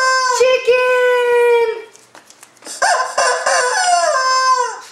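Rubber chicken toy squawking twice, each a long steady squeal that falls in pitch as the air runs out.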